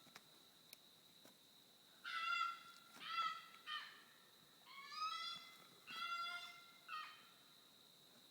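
Unidentified wild animal calling from nearby woods at night: two groups of three loud calls, each call about half a second long and the third in each group shorter. A faint steady high-pitched tone runs underneath.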